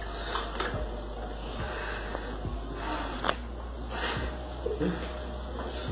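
Vegetable oil being poured from an upturned plastic bottle into a measuring cup: faint irregular ticks over a steady hiss, with one sharp click a little over three seconds in.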